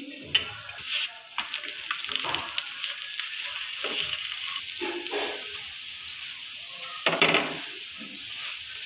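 Aloo paratha frying in ghee on a hot tawa: a steady sizzle. A few sharp knocks and scrapes of a spatula on the tawa come through it, the loudest about seven seconds in.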